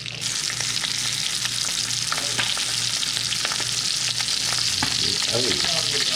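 Coated brook trout sizzling in hot oil, the frying hiss starting abruptly as the fish goes in and then holding steady with small crackles.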